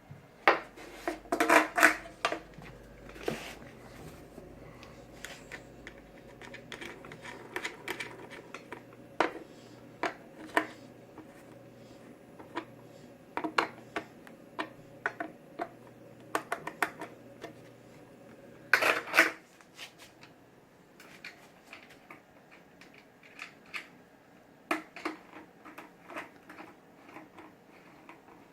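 Wheels being fitted onto skateboard trucks and their axle nuts tightened: scattered clicks, taps and knocks of small hard parts being handled, with the loudest clunks about two seconds in and about nineteen seconds in.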